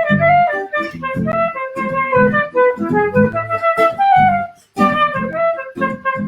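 Live acoustic guitar playing chords under a sustained melody line that moves note to note. The music breaks off briefly about two-thirds of the way through.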